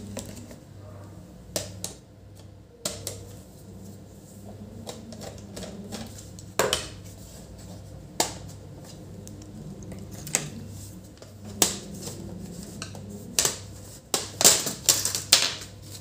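Laptop bottom cover being worked loose and unclipped by hand: scattered sharp clicks and snaps, coming thick and loud over the last two seconds as the cover's clips pop free.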